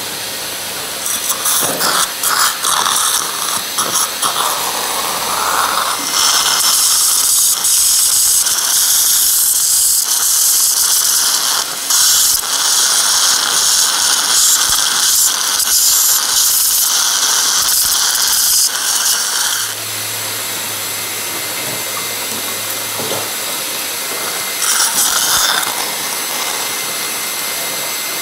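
Dental surgical equipment during guided implant drilling with a 20:1 contra-angle handpiece, heard as a loud steady hiss. A few short hissing spurts come first, then a long steady stretch that stops after about twenty seconds, and one more brief spurt near the end.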